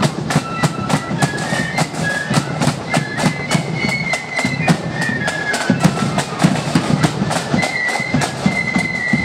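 Marching flute band playing: shrill flutes carry a melody of held notes over a dense, steady beat of snare and bass drums.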